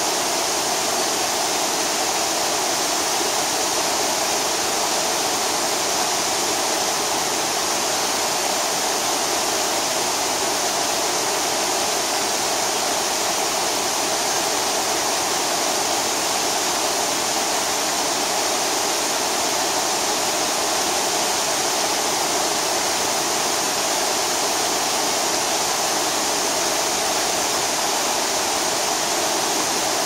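Multi-tiered waterfall pouring down over rock into a shallow, rocky stream: a steady, even rush of falling and splashing water that does not change.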